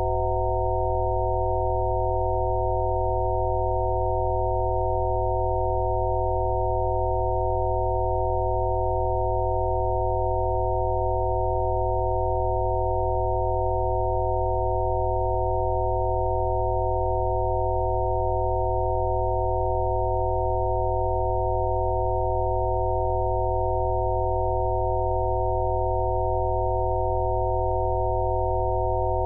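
About five pure electronic sine-wave tones sounding together as one unchanging chord over a deep low hum: Rife frequency tones generated for sound therapy.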